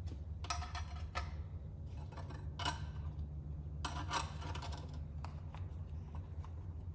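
Scattered light clicks and taps, about eight of them at irregular intervals, over a steady low hum.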